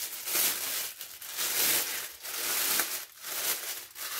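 Clear plastic roasting bag crinkling as hands work a piece of marinated meat into it, in a run of rustling bursts about once a second.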